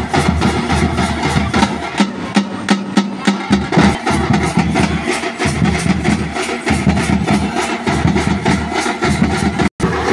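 A group of street drummers playing a fast, loud rhythm on large hand-held drums, the strikes coming in quick, even succession. The sound cuts out for a moment near the end.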